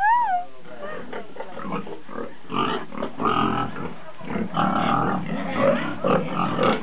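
Pigs grunting in short, irregular bouts while a boar courts a sow before mating.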